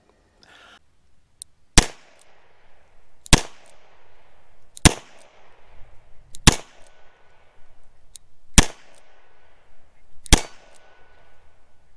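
Six shots from a Rock Island Armory AL9.0 9mm revolver, fired one at a time about one and a half to two seconds apart, each followed by a short echo.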